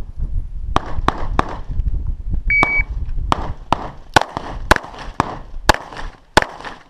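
Electronic shot-timer beep about two and a half seconds in, followed by a fast string of about ten 9mm pistol shots from a CZ 75 SP-01, some less than half a second apart. A few sharp cracks are also heard before the beep.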